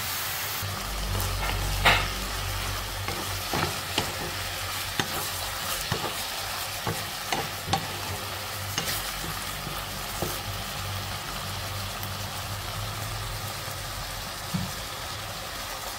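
Luffa and shrimp sizzling in a nonstick wok as a wooden spatula stirs them, with scattered knocks and scrapes of the spatula on the pan, the sharpest about two seconds in.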